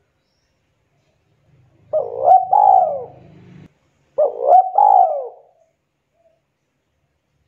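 Spotted dove (tekukur) cooing: two phrases about two seconds apart, each a short run of rising and falling coo notes.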